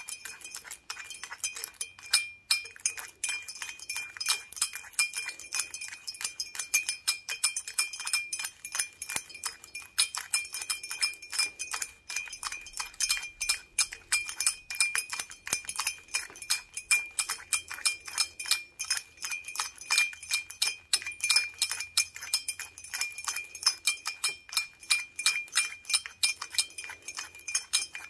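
Wooden toothpicks on gloved fingers tapping and rattling against a large glass beer stein. The taps come as rapid, irregular clicks, with the glass ringing in a steady high tone beneath them.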